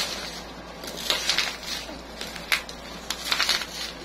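Plastic packaging and a taped cardboard box rustling and crinkling as they are handled and unwrapped, in a few short bursts, with a sharp click about two and a half seconds in.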